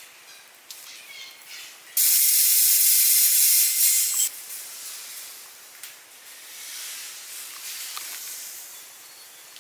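A loud burst of high hissing that starts suddenly about two seconds in and cuts off about two seconds later, with fainter hiss and scattered clicks and ticks around it.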